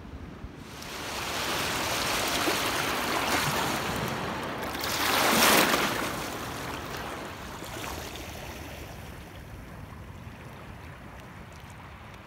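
Water rushing and washing over river-mouth shallows, a hiss that swells to a loud rush about five seconds in, then slowly fades.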